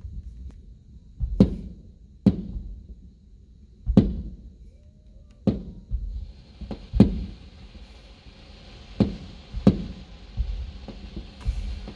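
Aerial firework shells bursting in the sky: about ten sharp booms at irregular intervals, each trailing off in a short low rumble. A steady hiss joins about six seconds in.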